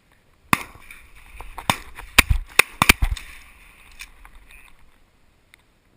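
A volley of shotgun blasts, about eight sharp shots over roughly three and a half seconds, several guns firing at once on incoming Canada geese. The loudest shots come in a cluster about two to three seconds in.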